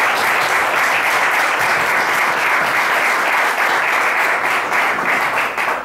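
Audience applauding: a dense, steady patter of many hands clapping that dies away at the very end.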